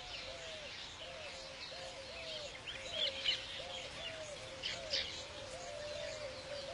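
Weaver birds calling: short high chirps scattered over a low arched note repeated about twice a second.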